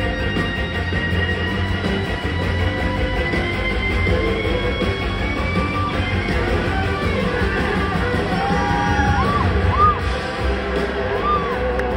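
Live blues-rock band playing, heard from the audience in a large hall: electric guitars, drums and organ, with a long sustained guitar note gliding slowly upward. A few short rising-and-falling notes come near the end.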